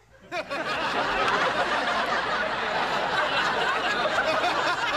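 A crowd laughing: many voices at once, breaking out suddenly just after the start and holding steady throughout.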